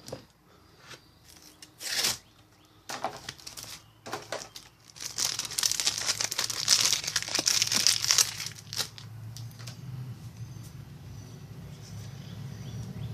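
Foil booster-pack wrapper of a Yu-Gi-Oh card pack being torn open and crinkled. A few sharp crackles come first, then dense crinkling from about five to nine seconds in, which gives way to a faint steady low hum.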